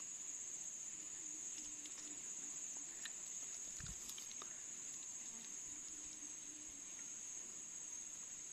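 Steady high-pitched drone of an insect chorus, with a soft low thump about four seconds in and a few faint clicks.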